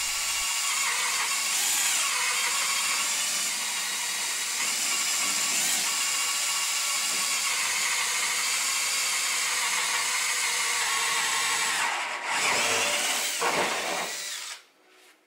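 Cordless drill boring a mounting hole into drywall, running steadily for about twelve seconds. It stops briefly, then runs again in a short burst with the motor speed changing, and cuts off near the end.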